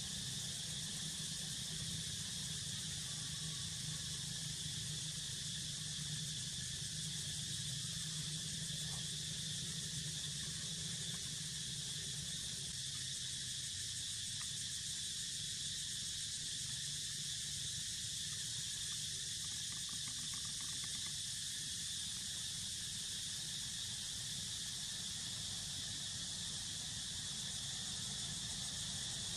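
Steady background noise: a high-pitched hiss over a low hum, unchanging throughout.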